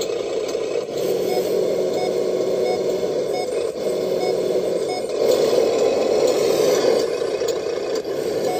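Sound module of a radio-controlled MAN truck playing a diesel engine running, with faint short beeps of a reversing warning repeating at an even pace as the truck backs up. The engine sound swells louder about halfway through.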